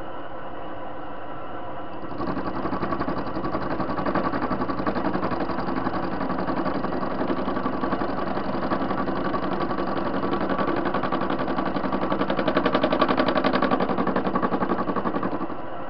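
TV-16 lathe running with its chuck spinning. About two seconds in a louder, rough, rapidly ticking cutting noise joins the motor hum as the tool takes a pass across the metal washer, and it stops shortly before the end, leaving the lathe running alone.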